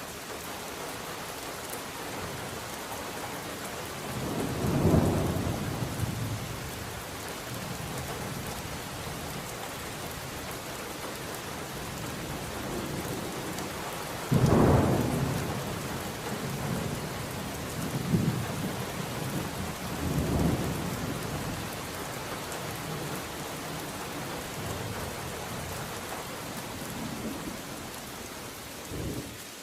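Steady heavy rain with thunder rolling through it: a rumble about five seconds in, a louder one breaking suddenly about halfway through, then a few smaller rumbles after it and one more near the end.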